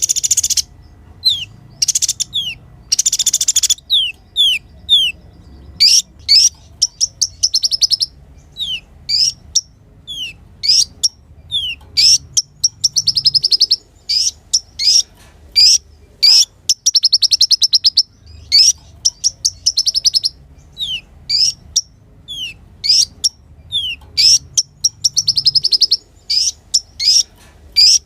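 Kolibri ninja sunbird singing: quick runs of sharp, falling chirps broken up by fast, buzzy trills that last about a second each.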